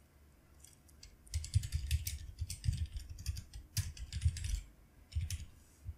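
Computer keyboard typing: a quick run of keystrokes starting about a second in, then a short pause and a few more keystrokes near the end.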